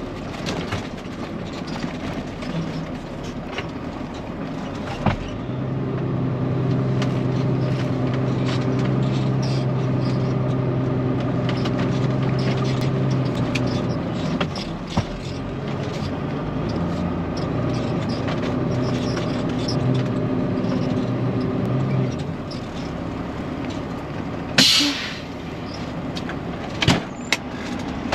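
Peterbilt 379 semi's diesel engine running as the truck manoeuvres and backs in, its note rising and holding steady for several seconds before easing. Near the end there is a sharp burst of air hiss, along with a few clicks and knocks.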